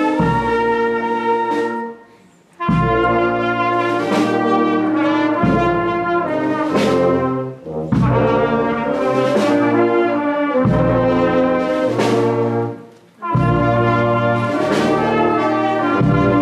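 Marching brass band of trumpets, trombones and tuba playing a tune in sustained chords over a low bass line, in phrases with two short breaks, about two seconds in and about thirteen seconds in.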